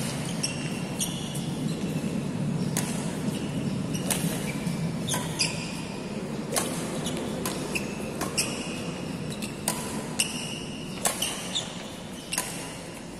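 Badminton shuttlecock being struck back and forth with rackets in a practice rally: sharp hits about once a second, some followed by short high squeaks from court shoes, over a steady low hum in a large echoing hall.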